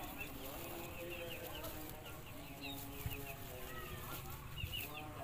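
Poultry calling in a pen: short, held low calls mixed with many quick high chirps, while a pair of ducks mate with their wings flapping.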